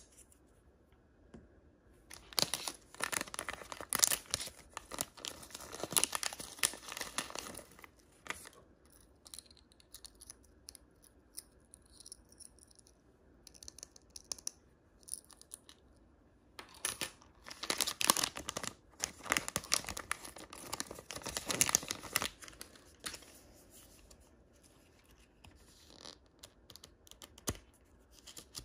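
Packaging being torn open and crinkled by hand, in two spells of crackly tearing and rustling with quieter handling between.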